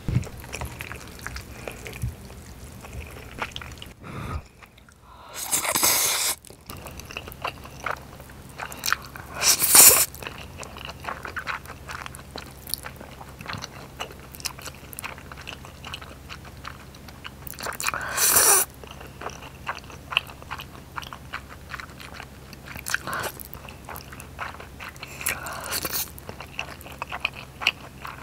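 Close-miked eating of spicy stir-fried ramen noodles and rice cakes: a steady run of small wet chewing and biting clicks, broken about five times by a loud slurp as a mouthful of noodles is sucked in.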